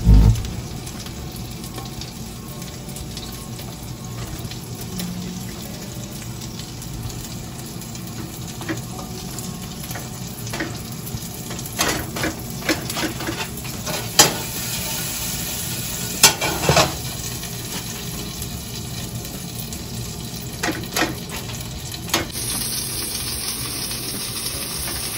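Sausages sizzling in a frying pan, a steady hiss, with scattered clicks and scrapes of a silicone spatula against a small pan as a garlic-herb mixture is spread onto bread slices. The sharpest clicks come about 14 and 16 seconds in.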